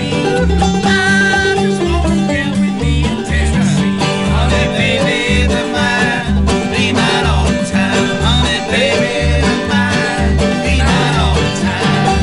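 Live bluegrass string band playing an upbeat tune: banjo and acoustic guitar picking over an upright bass plucking a steady beat.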